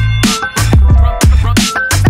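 Background electronic music with a fast drum beat and deep bass, in a drum-and-bass style.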